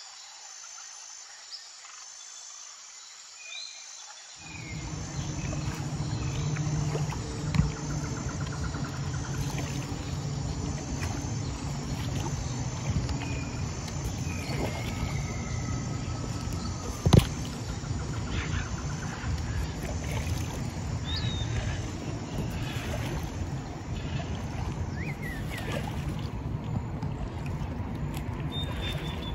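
Birds chirping over a faint, steady rhythmic insect trill. About four seconds in, a much louder steady low rumble with a hum sets in and runs on, broken by two sharp knocks.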